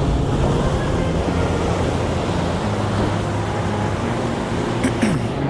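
Sea surf washing onto the shore in a steady rush, with a few light clicks near the end.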